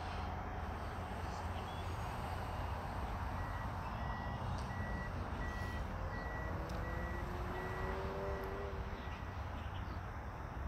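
Steady low rumble with an evenly repeating high electronic beep that starts a few seconds in and stops after about six seconds. A few faint rising tones come in near the end of the beeping.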